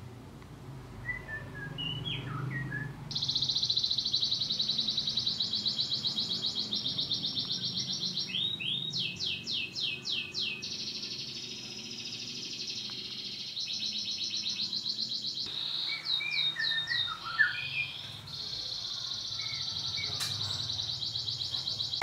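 Masteran: recorded songbird song played from a smartphone to tutor caged songbirds. It gives long phrases of rapid, high, trilled chirps with short breaks and a few sweeping notes, plus some softer scattered chirps between the phrases.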